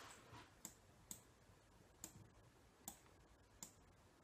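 Faint, sharp clicks at uneven intervals, roughly one a second, over a near-silent room.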